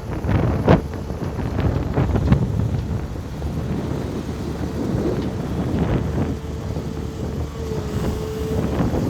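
Excavator running steadily with a constant whine over a low rumble, with a few sharp knocks in the first couple of seconds. Wind buffets the microphone.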